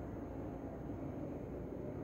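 Steady, low background rumble of room noise, with no distinct events.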